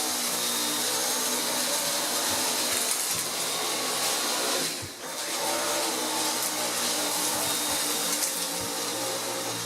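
Dyson V8 Absolute cordless stick vacuum running steadily, a rush of air with a steady motor whine, as it sucks crushed cereal off a carpet. The sound dips briefly about halfway through and then runs on.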